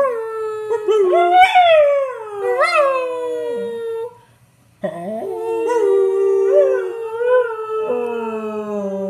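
A beagle howling: two long howls that waver up and down in pitch, with a short break about four seconds in.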